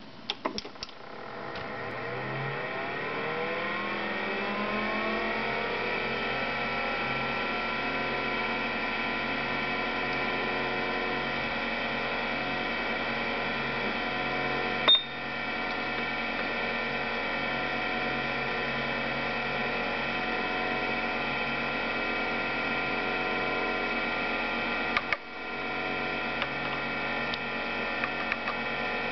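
A Bondwell 16 computer powering up: a few clicks, then its drives and fan spin up with a whine that rises for several seconds and settles into a steady hum. A single short high beep comes about halfway, during the system self-test. Near the end there is a click and then a few light keyboard clicks as a command is typed.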